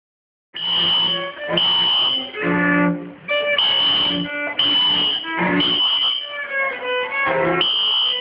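A school fire alarm horn sounds a high steady tone in short pulses, three about a second apart and then a pause, the temporal-three evacuation pattern. Violins and other bowed strings play over it. It all starts about half a second in.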